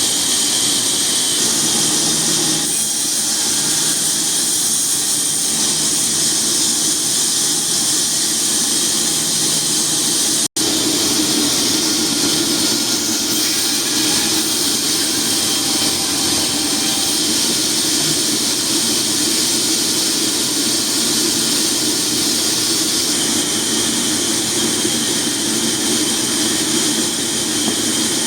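Sawmill saw running steadily under load, a loud even high hiss over a low hum. It cuts out for an instant about ten seconds in.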